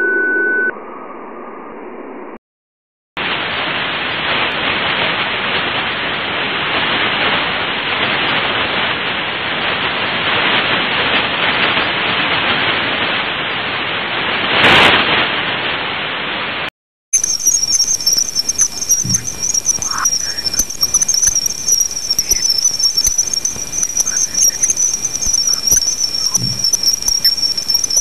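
Space sound effects billed as recordings of Jupiter. After the end of a humming noise and a short break, a dense, even rushing hiss, billed as a storm on Jupiter, runs for about fourteen seconds and swells once near its end. After another short break comes a crackling hiss with a steady high whine, billed as Jupiter's magnetosphere.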